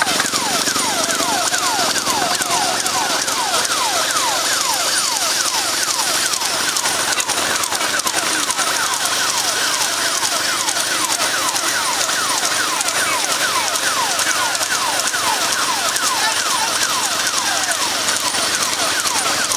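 An electronic siren-type horn sounding a fast, repeated falling wail, about three falls a second, over a steady rushing noise.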